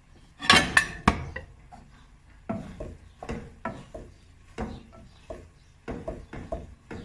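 Wooden spoon stirring noodles in a speckled nonstick saucepan and knocking against the pot: a loud burst of clatter about half a second in, then irregular knocks, two or three a second.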